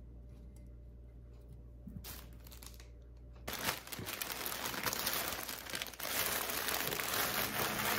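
Cellophane bouquet wrapping being crumpled and gathered up by hand, crinkling loudly from about three and a half seconds in after a quiet start with a faint tap.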